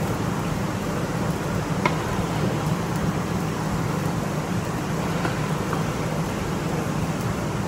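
Meat sizzling on a tabletop gas grill pan, an even hiss over a steady low hum.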